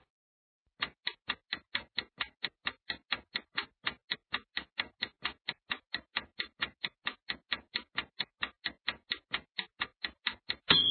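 Countdown timer sound effect: rapid, evenly spaced clock-like ticking that starts about a second in and runs steadily, ending in a short high tone as the countdown reaches zero.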